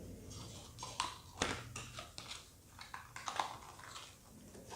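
Handling noise from an unboxing: irregular crinkles and sharp clicks as packaging and products are picked up and moved.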